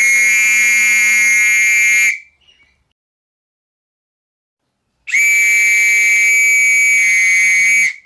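A whistle blown in two long, steady, high-pitched blasts: the first lasts about two seconds, and the second starts about three seconds later and lasts about three seconds.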